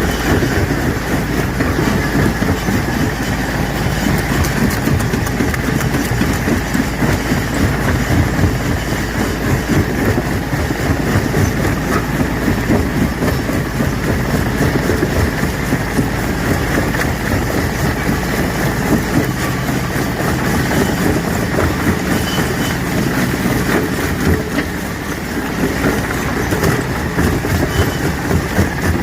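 Rock crusher running and crushing stone: a continuous heavy rumble with a dense rattle of small knocks and cracks.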